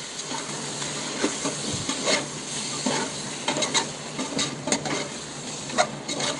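Chicken gravy sizzling in an open aluminium pressure cooker while a spoon stirs it, with irregular scrapes and clicks of the spoon against the pot.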